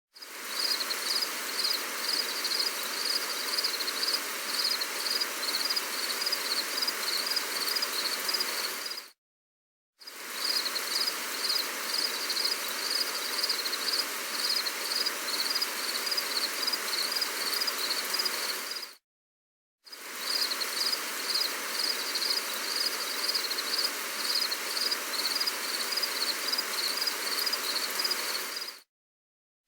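Steady hiss of gentle rain, with insects chirping in a high, even pulse several times a second. The sound cuts to silence for under a second about every ten seconds.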